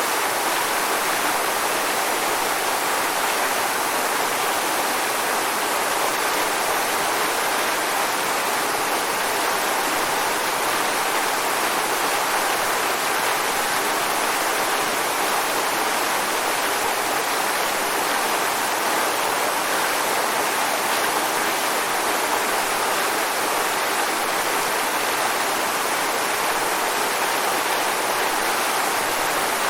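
Waterfall: a steady, even rush of falling water, with no change in level.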